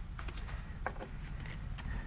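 A few faint, sharp clicks and light knocks, spread across the two seconds, over a low steady rumble. There is no axe strike, only the small sounds of the wood-splitting work between blows.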